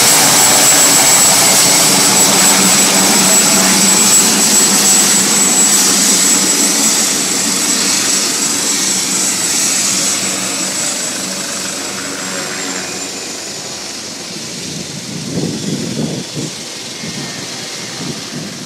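AgustaWestland AW139 twin-turboshaft helicopter on the ground with rotors turning: a steady high turbine whine over engine and rotor noise. The sound fades gradually, and the whine dips slightly in pitch about twelve seconds in. A few irregular low rumbles come near the end.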